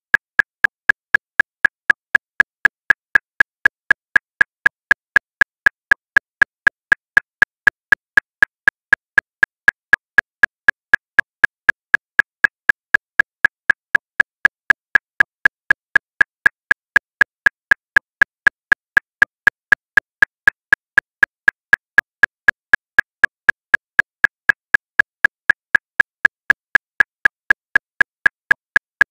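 Metronome clicking steadily at 239 beats per minute, about four even, identical clicks a second with no accented beat.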